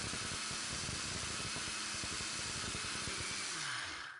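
Electric mixer grinder running steadily, grinding roasted lentils, broken wheat and oats into a dry powder. The motor noise dies away at the end.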